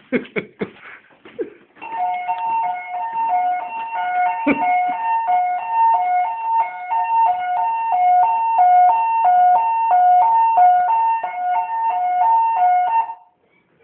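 Building fire alarm's evacuation tone starting about two seconds in: two pitches alternating rapidly and evenly, then cutting off suddenly near the end. One thump about four and a half seconds in.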